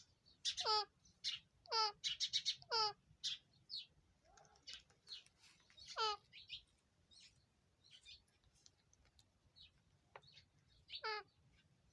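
Pet parrot calling: repeated short calls, each a quick downward glide from high to low pitch. Several come in quick succession over the first few seconds with short chirps between, then fewer, with one more near the end.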